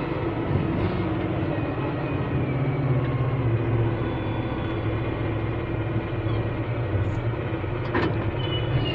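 Diesel engine of heavy earth-moving machinery running steadily with a low, even hum, with one sharp knock about eight seconds in.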